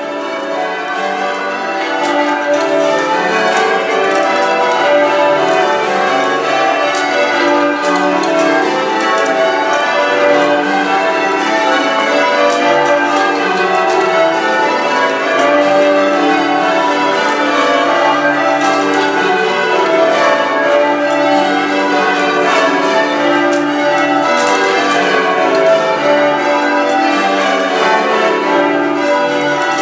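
A ring of church tower bells change ringing, strike after strike in a steady unbroken sequence with the bells' tones ringing on and overlapping. It grows to full loudness over the first couple of seconds.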